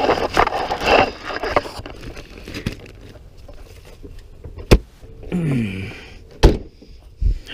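Gear being shifted around inside a car, with rustling and knocks during the first two seconds. Then the car's doors are shut: a sharp click, a short falling creak, and two heavy door thumps near the end.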